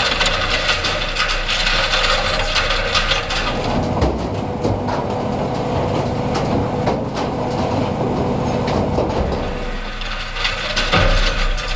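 SSI Pri-Max PR780 industrial shredder (primary reducer) tearing up a broken riding lawn mower: continuous grinding and crunching of metal and plastic between its rotor cutters, with many sharp cracks and clanks. The sound turns heavier and lower for several seconds midway.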